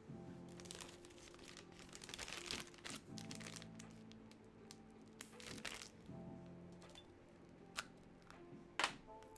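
Plastic crinkling and rustling in scattered bursts as hands squeeze a plastic piping bag of decoden cream and press on bubble wrap, with a sharper crackle near the end, over soft background music.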